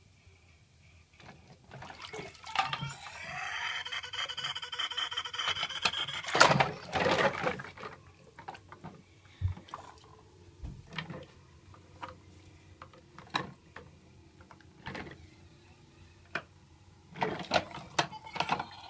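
Water splashing and sloshing in a filled bathroom sink as toy trucks are pushed around underwater, with the loudest splashes about six seconds in and again near the end, and scattered knocks of the plastic toys against the basin in between.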